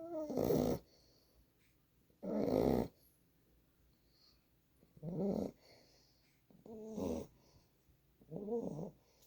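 A 9-week-old boxer puppy snoring in its sleep: five short snores, about every two seconds.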